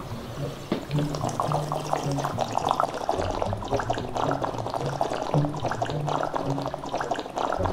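A person slurping and gurgling a drink in the mouth, in wine-tasting fashion, with irregular wet crackles throughout. Held low notes sound underneath.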